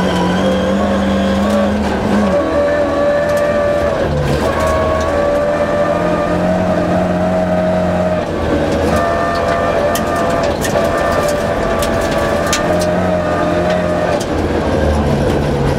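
Rally car engine heard from inside the cabin, running hard under load on a snowy stage; the revs hold, then drop several times as it changes gear. Scattered sharp clicks sound over it.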